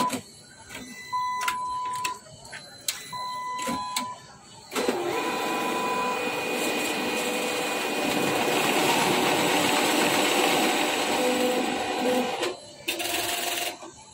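Diebold cash-deposit ATM beeping once about every two seconds with clicks between, then its note-handling mechanism runs loudly and steadily for about eight seconds as it draws in and counts the banknotes, with a short final burst near the end.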